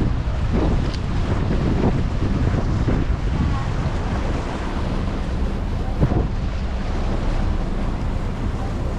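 Wind buffeting the microphone over the steady low hum of a river passenger boat's engine and the wash of water along its hull.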